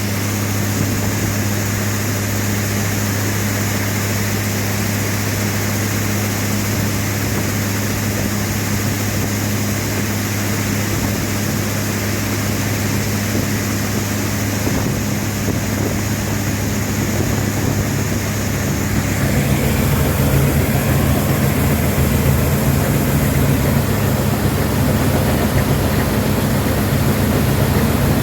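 Combine harvester running steadily with its engine and threshing gear working. About two-thirds of the way through, the engine note shifts and grows a little louder.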